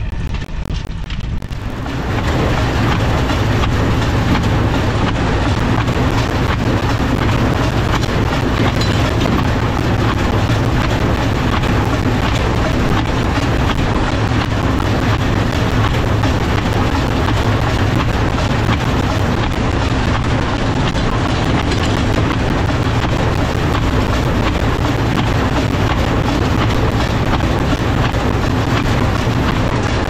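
New Holland Hayliner 317 hay baler running while baling, with the Massey Ferguson 178 tractor's engine driving it: a loud, steady mix of engine hum and machinery noise that sets in abruptly about two seconds in, after a quieter stretch.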